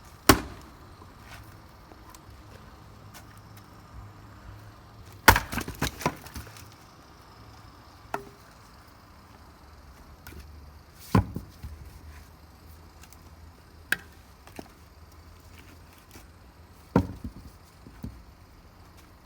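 Firewood being split with an axe: four sharp strikes on the log, spaced several seconds apart. After two of them comes a short run of clattering knocks as the split pieces fall, and there are a couple of lighter knocks between the strikes.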